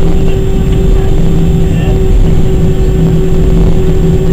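Airbus A319 jet engines running at idle while the aircraft taxis, heard inside the cabin over the wing: a steady low rumble with a constant hum on top.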